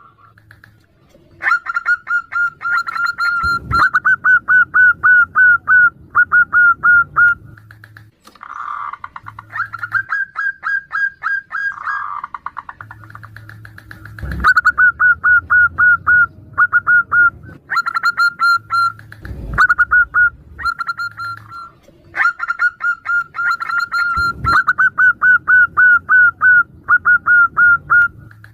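Zebra doves (perkutut) calling back and forth. Their song comes in runs of quick, clipped cooing notes lasting several seconds each, with a few softer, lower coos between the runs. Four sharp knocks are spread through it.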